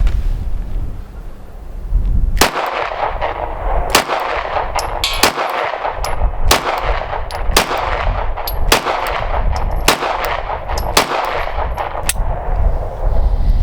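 Dagger 9mm semi-automatic pistol firing a string of about a dozen shots, roughly one a second, starting a couple of seconds in. Every round feeds and fires from the magazine suspected of causing double feeds.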